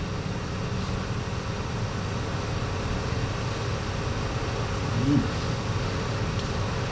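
Steady low hum and hiss of a recorded interview room during a long pause, with one brief murmur about five seconds in.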